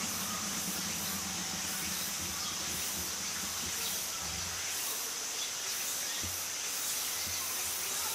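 Steady outdoor ambience in a planted aviary: an even high hiss, with a low hum underneath that fades out about halfway through.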